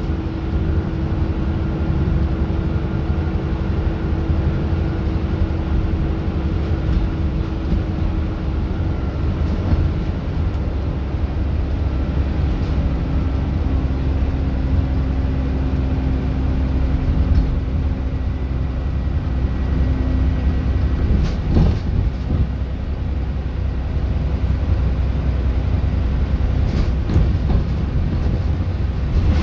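Alexander Dennis Enviro400 double-decker bus on the move: a steady engine drone over a low road rumble, with the engine's tone dropping slightly in pitch about halfway through. A few short knocks or rattles come near the end.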